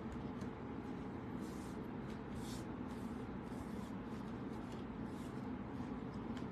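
Steady low room hum with a few faint, brief rustles of paper and thread being handled.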